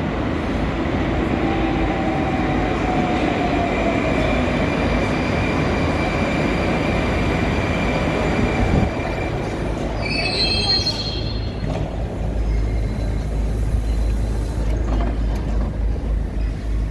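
Moscow metro 81-760/761 Oka train pulling into a station and braking, its running noise carrying a whine that falls in pitch as it slows, until it stops about nine seconds in. A short chime of high tones follows about ten seconds in, then a steady low hum.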